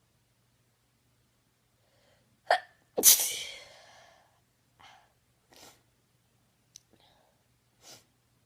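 An induced sneeze: a short explosive burst, then half a second later a louder, fuller sneeze that trails off over about a second. Several short, fainter breath sounds follow.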